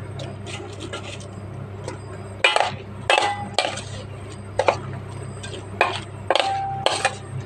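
A metal spoon clinking and scraping against a stainless steel mixing bowl as cauliflower florets are stirred through a thick batter. The knocks come irregularly, a few ringing briefly, over a steady low hum.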